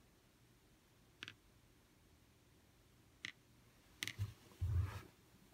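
A pendulum tapping against a computer screen: a few light, sharp clicks about a second in, around three seconds in and twice near four seconds, followed by a low muffled bump near the end.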